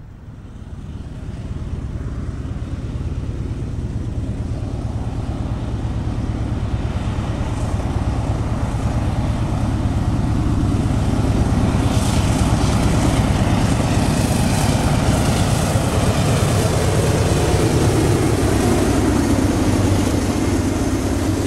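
Eastbound Norfolk Southern freight train led by two GE diesel-electric locomotives (an AC44C6M and a D9-44CW) approaching and passing close by. The low diesel rumble grows steadily louder, and a hiss in the highs rises from about halfway through as the locomotives draw level.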